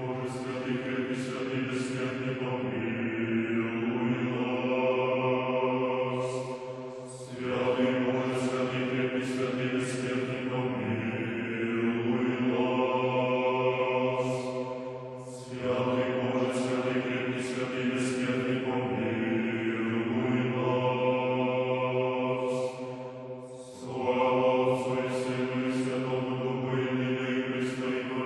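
Men's choir singing Orthodox memorial-service (panikhida) chant a cappella: sustained chords over a steady low bass note, with the phrases pausing briefly three times, about every eight seconds.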